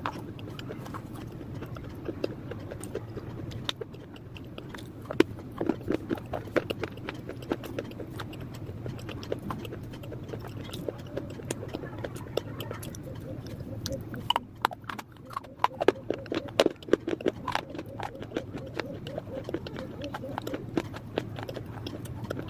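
Pieces of dried clay being bitten and chewed close to the microphone, a series of sharp, irregular crunches and cracks that come thickest about five seconds in and again around fifteen seconds in, over a steady low hum.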